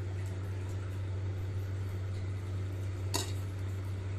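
A steady low mechanical hum, with a single short click about three seconds in.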